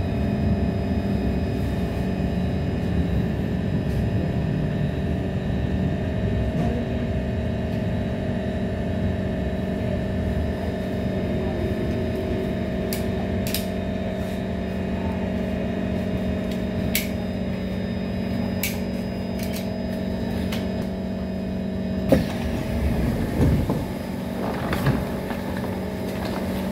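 Inside an SMRT C151 metro train: steady rumble and electrical hum of the car as it draws into a station and stands. About 22 seconds in a sharp clunk comes as the doors open, followed by a couple of softer knocks.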